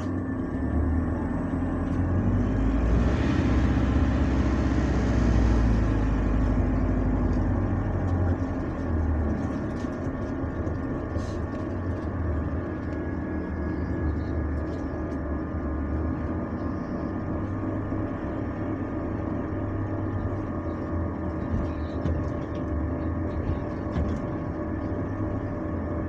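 Bus running under way, heard from inside the passenger saloon: a low rumble with a steady drone of several tones. It grows louder for a few seconds about two seconds in, with a few light rattles later on.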